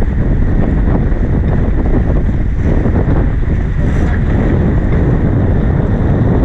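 Wind buffeting the microphone over the steady rush of water along the hull of a heeled sailboat under sail. A faint short tick about four seconds in.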